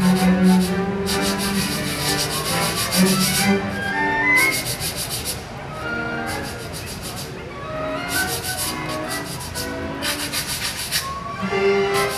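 Sandpaper blocks rubbed together in bursts of quick rhythmic scraping strokes, played as a featured percussion part. Between the bursts, a string orchestra plays short notes.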